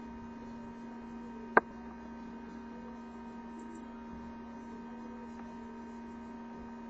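Steady electrical hum made of several fixed tones, with one sharp click about a second and a half in.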